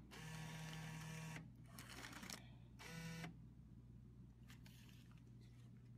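Vending machine's bill acceptor motor whirring as it draws in a $1 bill, for about a second and a half, followed by a few soft clicks and a second, shorter whir about three seconds in. The bill is taken and a dollar of credit registers.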